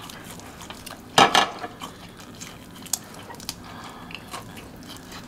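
Close-up eating sounds: biting and chewing chicken pulled off a skewer, with one loud sharp sound about a second in and small wet clicks of chewing after.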